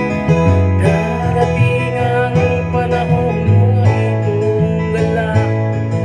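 A man singing a Filipino folk song in long held notes, with acoustic guitar accompaniment and steady bass notes underneath.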